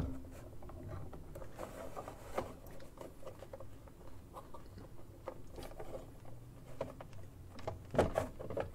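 Faint handling noises from plastic figure parts being worked by hand: small scattered clicks and rubs as the pieces are fitted together on the base, with a couple of louder knocks near the end.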